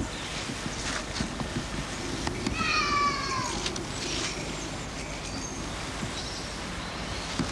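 A single drawn-out animal call near the middle, about a second long and sliding down in pitch, over steady outdoor background noise.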